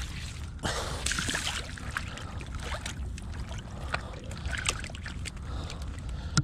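Wind rumbling on the microphone, with a short burst of sloshing water about a second in and scattered small clicks of pebbles shifting underfoot in the shallows.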